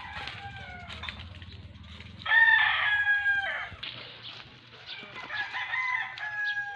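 Roosters crowing: one loud crow about two seconds in, lasting over a second, and fainter crowing near the end.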